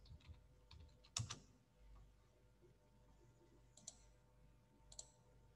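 A few faint, scattered computer keyboard clicks over near-silent room tone with a faint steady hum. The clearest click comes about a second in, and two smaller ones come near the end.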